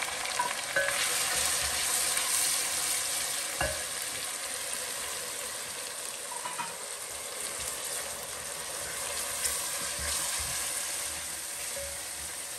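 Onion-tomato masala with spices sizzling in hot oil in a glass pot while it is stirred with a wooden spoon: the frying-down (bhuna) stage of chole masala. A single knock comes a little over three and a half seconds in.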